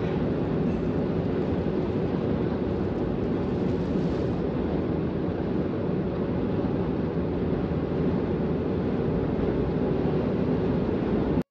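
Steady cabin noise of a Mitsubishi Pajero cruising on a highway: engine, tyre and wind noise at an even level, cutting off suddenly near the end.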